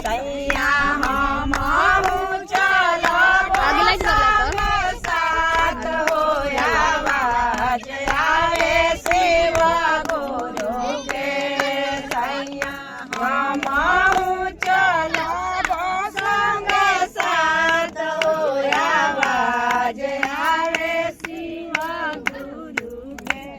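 Voices singing a Bhojpuri Shiv charcha devotional song to hand-clapping that runs through the song.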